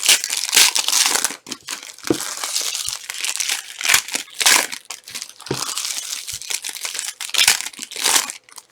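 Trading card packs being torn open by hand, their wrappers crinkling and rustling in irregular bursts with a few sharp crackles.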